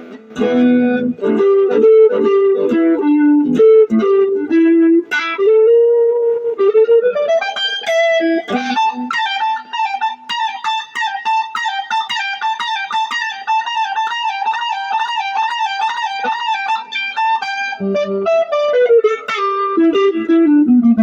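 Electric guitar played through a 5-watt Fender Vibro Champ Reverb amp and an Ibanez TS9 Tube Screamer overdrive: a bluesy single-note lead line. Through the middle it holds a rapidly repeated high note, and it ends with a falling run.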